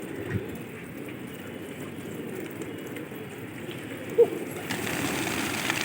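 A flock of pigeons cooing steadily, with one short, sharp sound about four seconds in and a louder, noisier stretch near the end.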